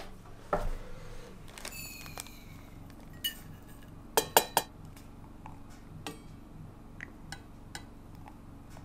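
Dishes and cutlery clinking: scattered sharp clinks, one ringing briefly about two seconds in, and a quick run of three a little past the middle.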